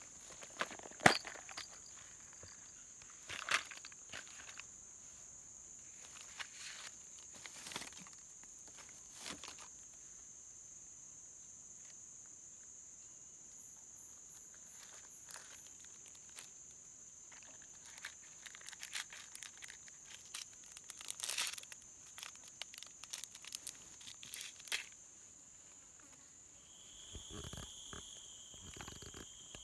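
A steady high-pitched insect buzz, with scattered rustling, crinkling and sharp clicks of things being handled close by. A second, lower steady buzz joins in near the end.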